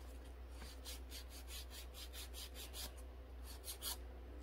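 Hand nail file rasping back and forth across an acrylic nail in quick, faint strokes, about five a second, with a brief pause or two.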